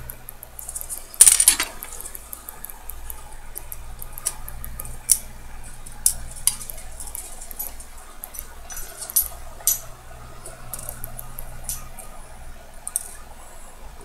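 Small metal hand tools clicking and tapping against a Poljot alarm watch movement during precision assembly, with a brief louder scrape about a second in. A low steady hum runs underneath.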